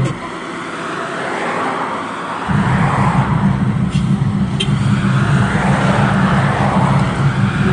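Car driving along a road: steady engine and road rumble that grows louder suddenly about two and a half seconds in, under a rushing noise that swells and fades.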